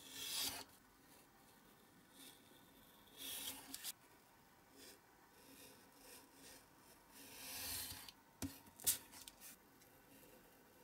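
Snap-off utility knife blade drawn through printed card on a cutting mat: three faint scraping cuts a few seconds apart, then two sharp clicks shortly after the last cut.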